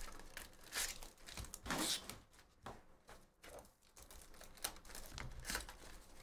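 Plastic shrink-wrap crinkling and tearing, with cardboard rustling, as hands unwrap and open a sealed box of trading cards; irregular bursts of crackle rather than a steady sound.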